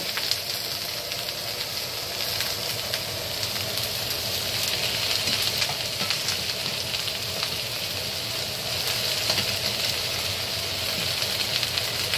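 Green beans and diced onions sizzling in a hot cast-iron skillet: a steady frying hiss with scattered small crackles.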